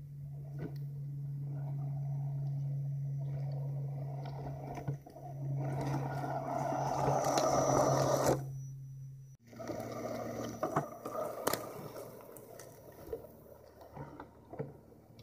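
Electric drive motor and gears of a 1/10-scale RC crawler truck whining steadily as it crawls closer, its tyres crunching and snapping over twigs and leaf litter, loudest about eight seconds in as it drives right over the microphone. After an abrupt cut the whine goes on at a lower pitch with scattered clicks of sticks.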